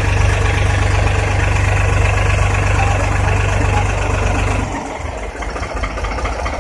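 New Holland 3630 tractor's three-cylinder diesel engine running steadily with a strong deep hum while it works the hydraulic boom, then easing to a lighter, quieter idle about four and a half seconds in.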